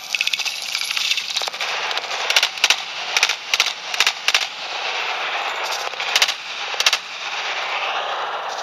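Handgun shots fired during a practical shooting stage, about a dozen sharp reports, several in quick pairs, with a short pause about halfway, over a steady hiss.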